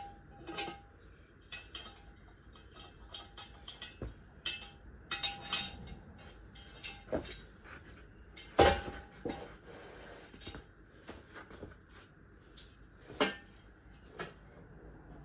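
Metal tools and car parts clinking and knocking in irregular strikes, some ringing briefly. The loudest is a sharp metallic knock about eight and a half seconds in.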